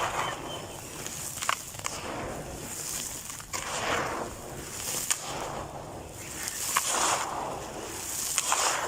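Lumps of dry red dirt being crumbled and crushed: gritty crunching that swells and fades about every second and a half, with a few sharp cracks.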